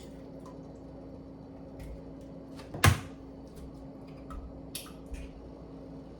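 A single sharp knock about three seconds in, with a few lighter clicks of handling after it, over a steady low hum.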